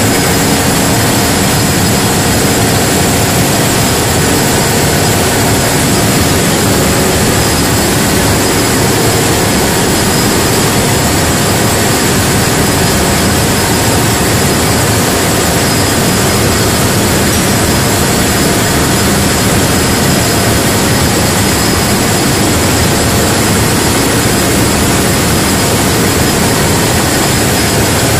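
Loud, steady drone of a running diesel engine, unchanged throughout, with a thin high whine above it.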